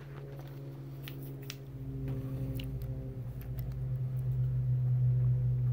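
A steady low hum that grows louder toward the end, with a few faint clicks as a plastic scale-model truck is handled.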